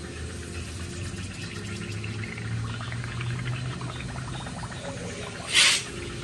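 Water sloshing and splashing around a car radiator submerged in a test tank, with an air hose attached for an underwater leak test, as hands move the radiator and swish the water. A low steady hum runs underneath, and there is a brief loud burst of noise about five and a half seconds in.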